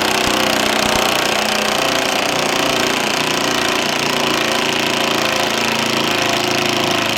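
A power tool running steadily at a constant speed, a loud, even whirring hiss with a low hum beneath it.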